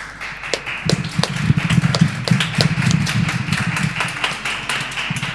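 Audience applause: many irregular claps that start suddenly and die away near the end.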